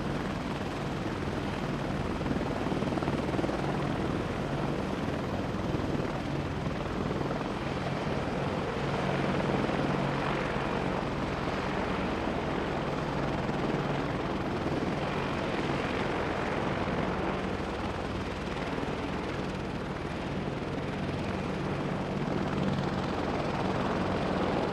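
AH-64 Apache helicopter running steadily, the rapid beat of its rotor blades over a steady low drone, with no change in level.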